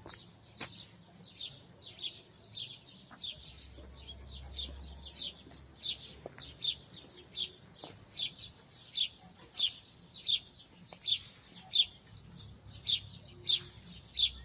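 A small bird calling with a repeated sharp chirp, about two to three a second, getting louder as it goes on.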